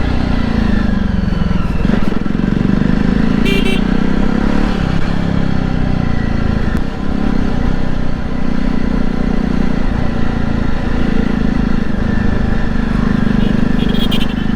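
Jawa motorcycle's 293 cc single-cylinder engine running under way, its pitch rising and falling several times with throttle and gear changes. A short high tone sounds twice, about three and a half seconds in and near the end.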